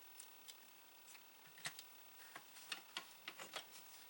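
Faint, scattered clicks and light knocks of an Atari SF354 floppy drive mechanism being fitted by hand into its plastic case, with one sharper click about a second and a half in and a run of quicker clicks in the second half.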